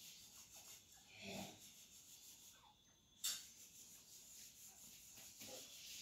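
Faint scratching and tapping of grey francolins pecking at a gritty concrete ledge, with a soft thud about a second in and one sharp tap a little past halfway.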